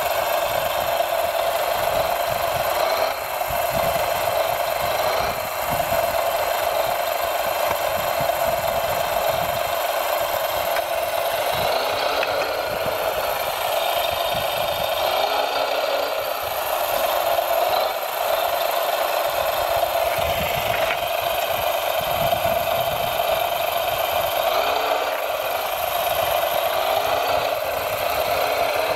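Radio-controlled model trucks and machines working: a steady mechanical whine with rattling, and a few short rises and falls in pitch.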